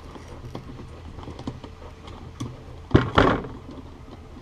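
Small clicks and taps of hands working on a MIG spool gun while its contact tip is taken off, with a solid knock about three seconds in.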